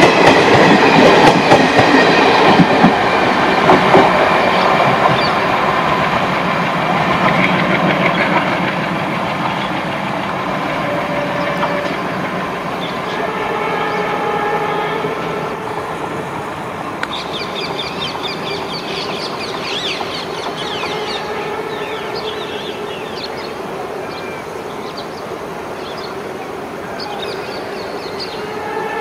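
Passenger coaches of an express train rolling past, wheels clattering over the rail joints. The sound is loud at first and fades steadily as the last coach draws away down the line.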